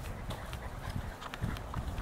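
Footsteps through long grass and dry brush: uneven dull thumps with rustling and small crackles of stems.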